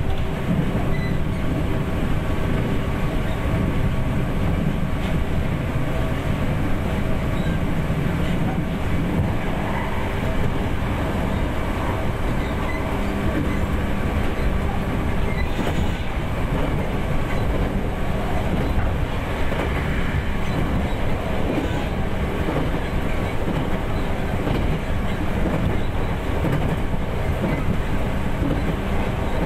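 Running sound of a JR 211 series 3000 subseries electric train, heard from inside the car: the hum of its MT61 externally ventilated traction motors (gear ratio 5.19) holds at an even pitch over the rumble and clatter of the wheels on the rails, the train at a steady speed.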